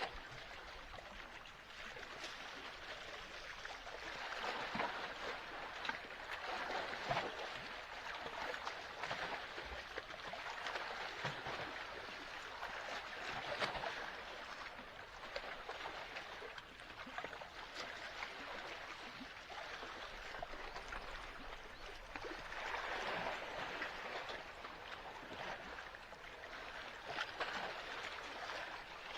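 Sea water lapping and splashing at the shore, a steady washing noise that swells and eases every few seconds.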